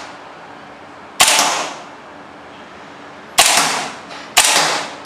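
Western Arms Patriot M4 gas-blowback airsoft pistol fired in single shots: three sharp reports, each trailing off in a short ringing echo, the first about a second in and the last two about a second apart, with another shot starting right at the end.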